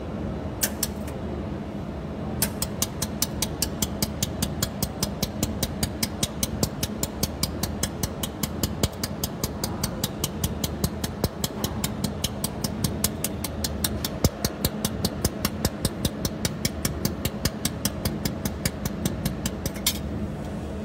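Desktop jewelry laser welder (OPT-JW200) firing pulse after pulse, each pulse a sharp tick, about four a second, starting about two seconds in after a couple of single shots and stopping near the end. A steady machine hum runs beneath.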